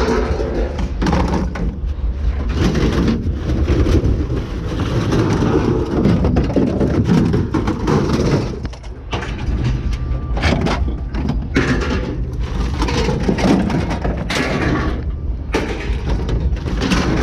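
Scrap metal clattering and banging as pieces are handled and dropped during unloading at a scrapyard, with many short knocks and a steady low rumble underneath.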